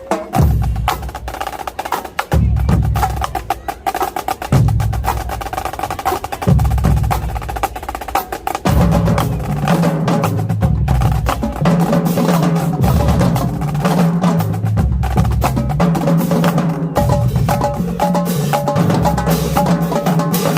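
Marching drumline playing: rapid snare drum strokes and rolls over deep bass drum hits. About nine seconds in, the bass drums switch from single hits every two seconds to a busy running pattern.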